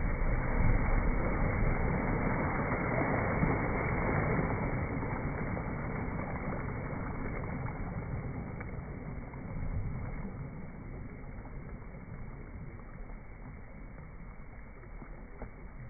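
Slowed-down water sound of a dog's splash into a lake and its churning as the dog swims off. It is a dull, low wash of water with no high end, fading gradually.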